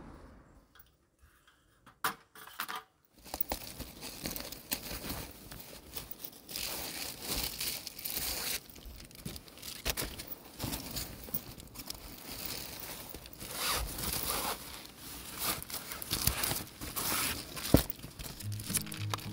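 Fabric window cover rustling and crinkling as it is handled and fitted over a car's rear door window, with scattered clicks and one sharp click near the end. The first couple of seconds are nearly quiet apart from two clicks.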